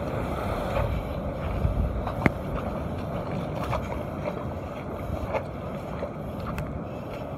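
Wind buffeting the microphone over surf washing across shoreline rocks, a steady rushing noise. A few sharp clicks break through it, the loudest about two seconds in.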